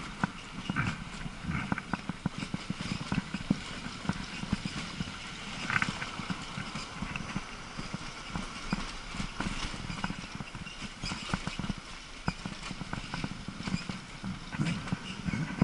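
E-bike rattling and clattering as it rolls over cobblestones: a dense, irregular run of small knocks over a low rumble.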